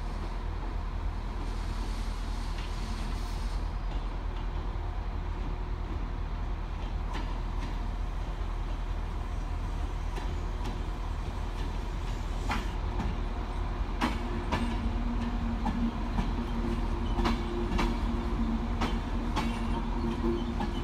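Irish Rail 201 class diesel-electric locomotive and its Enterprise carriages drawing slowly into a station: a steady low engine rumble as the train approaches, then, from about two-thirds of the way through, wheels clacking over rail joints and a steady droning hum as the locomotive and carriages roll past.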